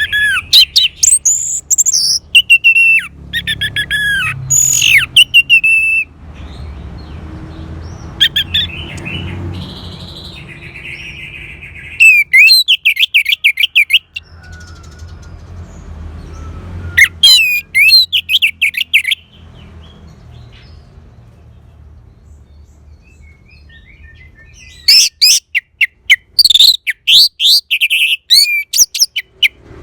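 Orange-headed thrush singing in loud phrases of quick, varied whistled notes, separated by pauses of a few seconds.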